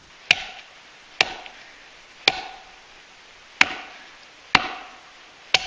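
Six sharp chopping blows into frozen yellow cedar, about one a second, each with a short ring.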